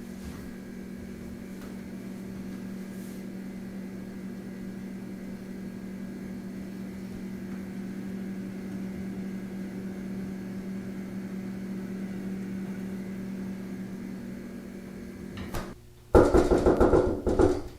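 A steady low hum with a few even tones, like a running appliance. About two seconds before the end it gives way to a burst of loud, rapid knocking or banging.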